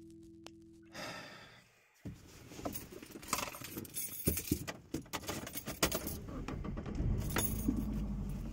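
A held synthesized note fades out in the first second. Then come irregular jingling and clicking rattles of keys being handled in a car, with a low rumble near the end.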